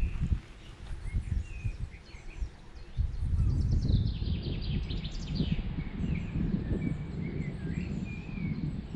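Wind buffeting the microphone, a loud uneven low rumble, while small songbirds chirp and twitter with short high notes, more of them from about three seconds in.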